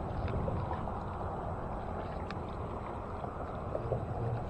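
Steady outdoor noise of wind and water on the microphone, with a few faint clicks.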